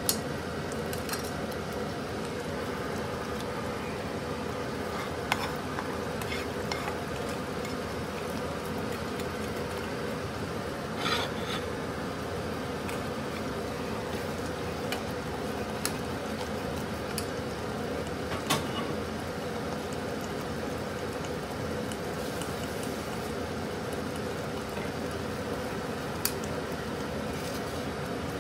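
Metal ladle stirring thick moong dal and spinach in a steel pot, with a few sharp clinks of the ladle against the pot over a steady hiss.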